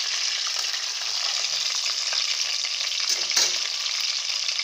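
A whole fish frying in hot oil in a steel pan on low heat: a steady sizzle full of small crackles, with two sharper clicks about three seconds in.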